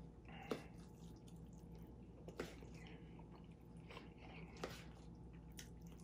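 Faint clinks and scrapes of a metal spoon in a stainless steel bowl as chicken and rice is scooped out, with about four short sharp clicks spread through.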